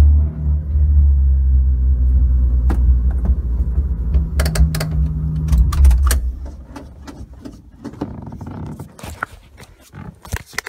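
Mitsubishi Magna VR-X V6 idling through a custom 3-inch exhaust with extractors, a Vibrant resonator and a Magnaflow muffler, a deep steady drone heard from inside the cabin. The engine cuts off about six seconds in, followed by scattered light clicks and rattles.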